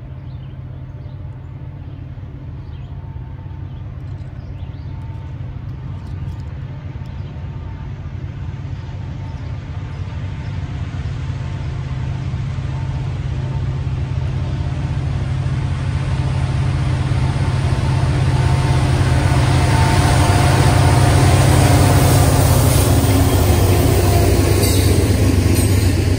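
Norfolk Southern diesel freight locomotives approaching and passing, their low engine drone building steadily louder. The hiss and rumble of steel wheels on rail rises with it and is loudest as the engines and the first double-stack container cars go by near the end, with a few sharp clicks.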